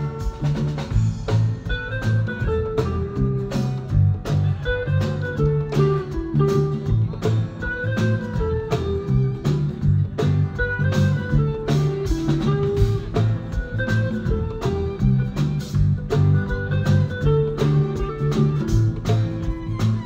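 Electric guitar and electric bass guitar playing together: a melodic guitar figure that repeats every couple of seconds over a busy bass line.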